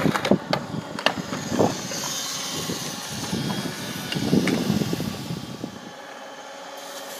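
Cordless power drill driving a scooter's rear wheel through a rubber bicycle-tube sleeve, whirring as the scooter rolls over concrete. A few sharp clicks come in the first two seconds, and the sound grows louder for a moment about four seconds in.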